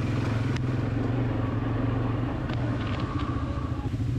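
ATV engine running steadily, with a sharp click about half a second in and a few light clicks later.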